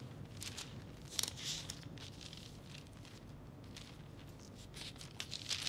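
Paper pages being leafed through while searching for a passage, rustling several times, loudest about a second in and again near the end.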